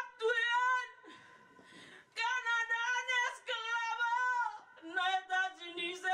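A woman singing unaccompanied in a high voice, holding long notes. There is a short break about a second in, and the line drops lower near the end.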